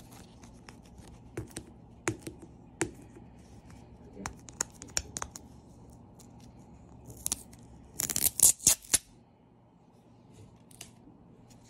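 Fingers handling a hard plastic gacha capsule: scattered clicks and scratches of fingertips and nails on the plastic and its tape, with a loud burst of crackling clicks about eight seconds in.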